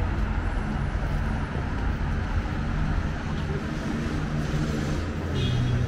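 Street traffic: a steady rumble of vehicle engines going by, with a short high-pitched tone near the end.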